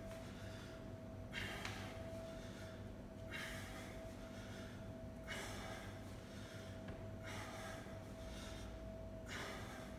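A man breathing hard from exertion during kettlebell reps: forceful breaths in pairs, about one pair every two seconds. A faint steady hum runs underneath.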